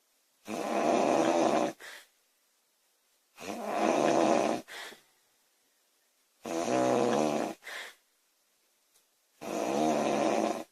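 A woman snoring loudly: four long snores about three seconds apart, each followed by a short, quieter burst.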